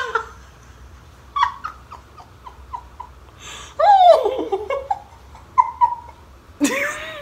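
A woman's fit of laughter, partly stifled behind her hand: short breathy gasps and squeaks, with louder squealing laughs about four seconds in and again near the end.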